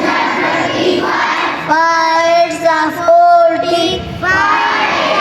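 Children singing together in chorus, with long held notes about two and three seconds in.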